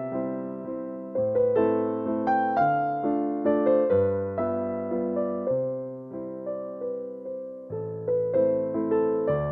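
Background piano music: a gentle melody of struck notes over sustained chords, each note fading after it is struck.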